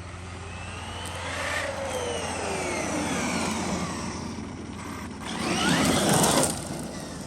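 Traxxas Maxx Slash RC truck's brushless electric motor whining, rising and falling in pitch as it speeds up and slows. There is a louder surge of hard acceleration with a rising whine from about five seconds in.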